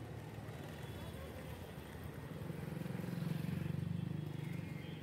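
Street traffic noise, with a small motorcycle engine passing close by. The engine swells to its loudest a little past the middle and then fades.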